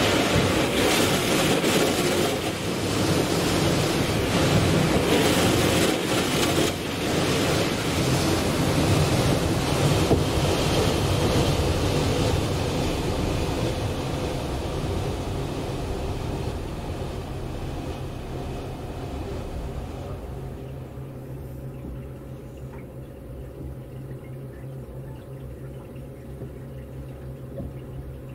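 Depot train-washing machine sending water rushing against the side of a Tobu 200 series Ryomo express car, heard from inside the cabin as a loud, even wash. It fades out after about twenty seconds, leaving a steady low hum.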